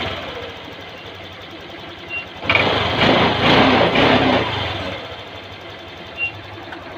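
Honda Click 125 scooter engine idling, growing louder for about two seconds near the middle. The engine is being listened to for the ticking noise that the mechanic traces to the timing chain tensioner.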